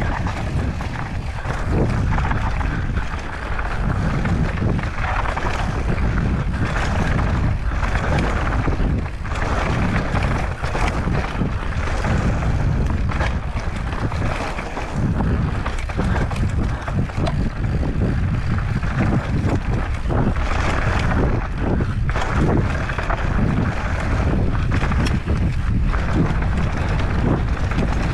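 Wind rumbling on the microphone during a fast mountain-bike descent, with tyres running over rough rocky ground and frequent short knocks and clatters from the bike.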